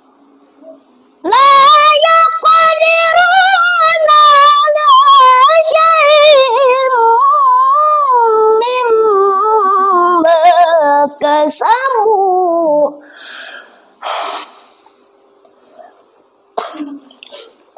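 A boy reciting the Qur'an in melodic tilawah style: one long, high, ornamented phrase sung on a single breath, starting about a second in and running for about eleven seconds. A few short sounds follow in the pause.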